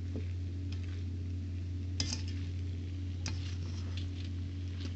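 Spatula stirring chicken and vegetables in a wok, clicking against the pan a few times, most sharply about two seconds in and again a little after three. A steady low hum runs underneath.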